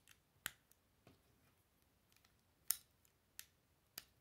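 Lego pieces being pressed together by hand: a handful of sharp, separate plastic clicks, the loudest about two and a half seconds in.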